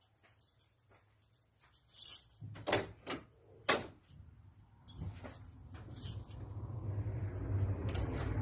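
Knocks and clicks, like a vehicle door and keys being handled. Then a Peugeot 404 pickup's engine starts running about halfway in, its low rumble steadily growing louder.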